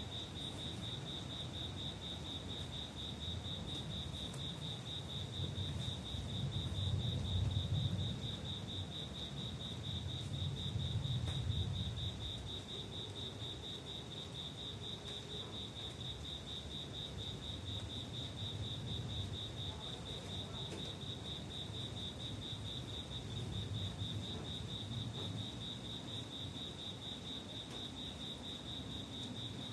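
A cricket trills on and on at one high, steady pitch. Under it, low rumbling swells twice in the first twelve seconds.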